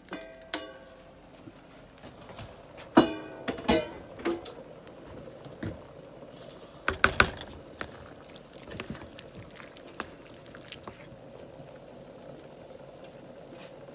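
Light plucked-string background music. Over it, a few clanks and scrapes of a metal skillet and wooden spatula come about three seconds in and again around seven seconds, as browned ground chicken is scraped into a pan of simmering gravy.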